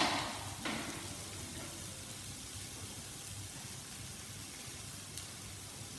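Mushrooms, onions and vegan bacon frying in a pan with a steady sizzle. A brief louder noise comes right at the start and a smaller one just under a second in.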